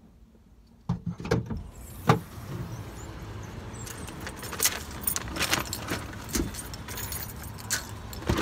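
Handling noise outdoors: a string of sharp clicks, knocks and light rattles as things are moved about at a shopping cart, starting about a second in, with one loud knock about two seconds in. A steady rush of wind and distant parking-lot traffic runs underneath.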